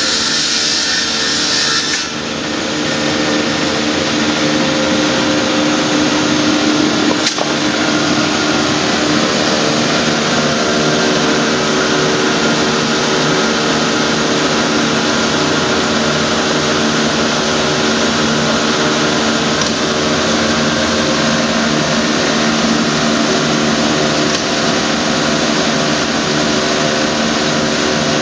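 Multi-blade rip saw running: a loud steady machine noise from its motor and spinning blades, with several steady tones. A higher hiss drops away about two seconds in, and there is a single click a few seconds later.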